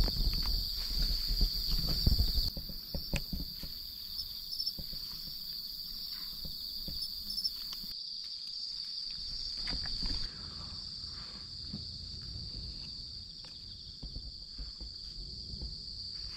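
Crickets trilling steadily in a continuous high band. A low rumble is loudest in the first couple of seconds, and faint scattered clicks run through it.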